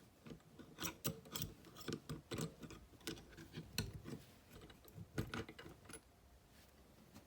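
Faint, irregular small metallic clicks and ticks as a brass ring is worked off a boiling water tap's handle mechanism, stopping about five seconds in.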